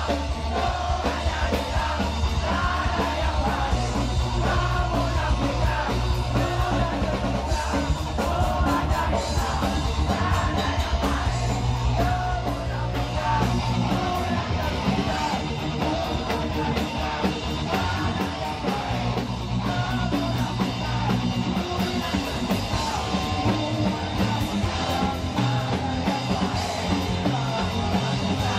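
Live skate punk band playing: drum kit, distorted electric guitars and bass, with shouted vocals over the music.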